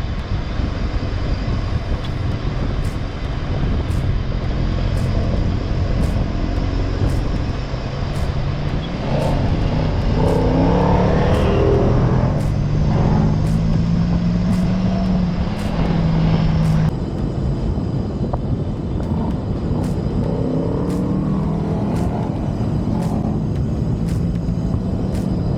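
Four-wheel drive on the move: steady engine and road rumble, with a change in the sound about two-thirds of the way through.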